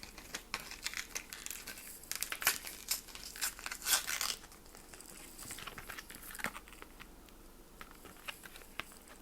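Fragrance sample packaging being handled and opened: crinkling, rustling and small clicks, busiest about two to four seconds in, then only a few scattered clicks.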